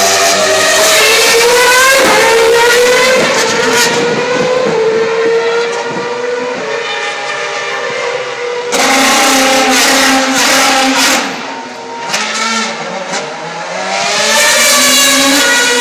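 2012 Formula 1 cars' 2.4-litre V8 engines running at high revs. The note climbs over the first couple of seconds and holds; a louder engine comes in suddenly about nine seconds in, the sound dips near twelve seconds, and the revs climb again near the end.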